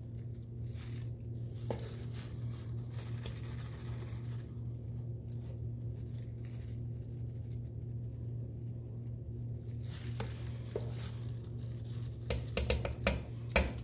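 Metal spoon scraping soft, thick chocolate mixture and dropping spoonfuls into silicone muffin liners, over a steady low hum. Near the end a quick run of sharp clinks as the spoon scrapes against the steel mixing bowl.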